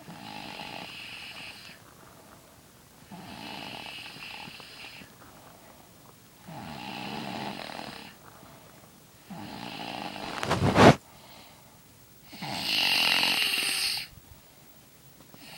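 A sleeping girl snoring: five snores about three seconds apart, the fourth ending in a sudden loud peak. Her snoring is heavy.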